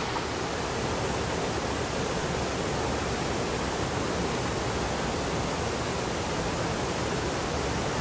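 Waterfall: water rushing steadily over the cascades, an even, unbroken hiss and rush.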